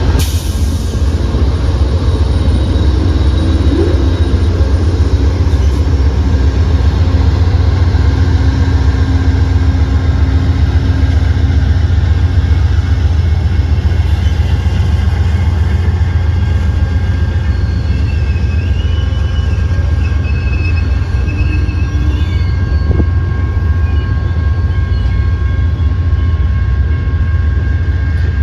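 A train rolling past with a loud, steady rumble of wheels on rail. Brief high-pitched wheel squeals waver in about two-thirds of the way through.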